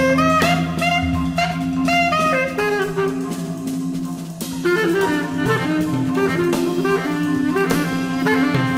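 Jazz ensemble of bass clarinet, guitar, marimba, double bass and percussion playing an instrumental piece: a wind melody line over sustained bass notes and steady percussion strikes.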